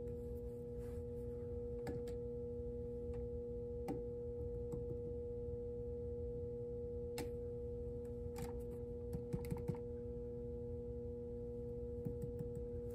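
Steady electrical hum from an energised transformer power supply, with a few faint clicks as the relays' small push buttons are pressed with a pen.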